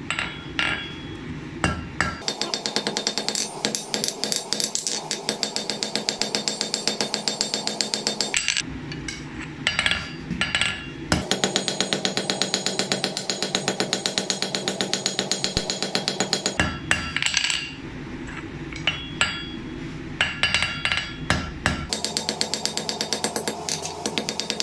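Hand hammer striking red-hot steel on an anvil in a steady run of blows, flattening the end of the bar into the pendant's hammer head. In stretches the blows come faster and evenly, with music playing.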